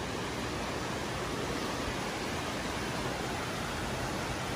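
Flooded creek running fast and nearly bank-full: a steady, even rush of muddy floodwater.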